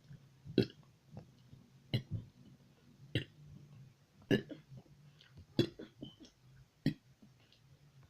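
A series of short, abrupt burps coming at a fairly even pace, about one every second and a quarter: six louder ones with a few fainter ones in between.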